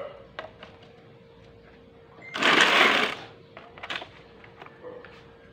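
A plastic socket-set case being set down and slid across a concrete floor, the metal sockets inside rattling for just under a second about halfway through, followed by a few light clicks.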